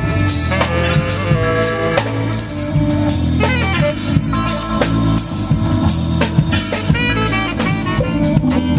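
Upbeat jazz-style music with drums and horns such as saxophone and trumpet.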